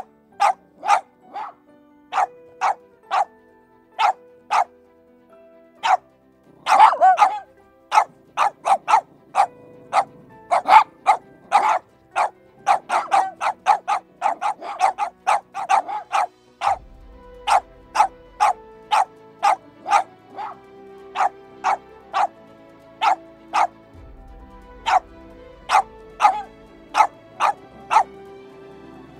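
A dog barking over and over: short sharp barks, sometimes singly and sometimes in quick runs of three or four a second, with a longer tangle of barking about seven seconds in. Soft background music plays underneath.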